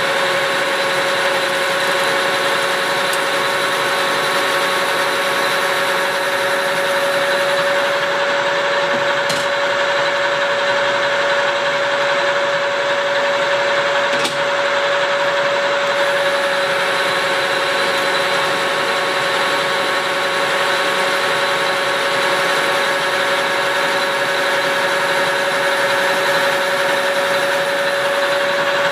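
Engine lathe running steadily while cutting a shaft under the tracer attachment: an even machine hum with one strong steady tone.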